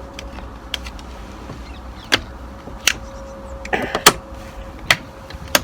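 Several short, sharp clicks and knocks, about five, spaced irregularly over a steady low hum, typical of equipment being handled after the last shot.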